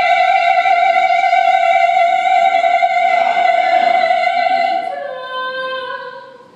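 Female opera singer, unaccompanied, holding a long high note, then stepping down to a lower note about five seconds in that fades away.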